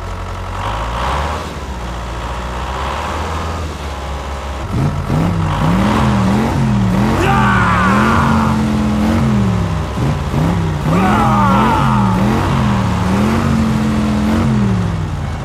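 An RC truck's electronic engine sound revving up and down in steps. The same rise-and-fall pattern plays twice, with higher squealing glides above it and a steady low hum under it.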